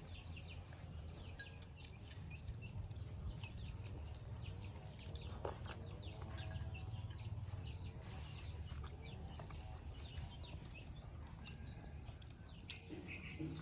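Small birds, likely chicks or other poultry, chirping repeatedly in many short, high, falling notes over a steady low rumble, with a fainter, lower call from a hen or other fowl about five to eight seconds in.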